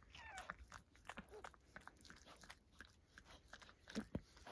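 Mother dog licking her newborn puppy: quiet wet clicks and mouth smacks, a little louder a couple of times near the end.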